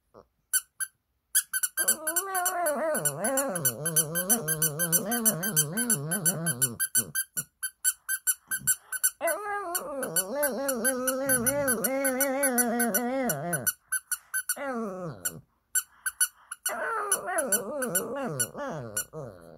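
Shih Tzu singing in long, wavering, sad-sounding howls in response to a plush squeaky toy being squeezed rapidly, several squeaks a second. The dog's howls come three times, about two, nine and seventeen seconds in, while the toy keeps squeaking.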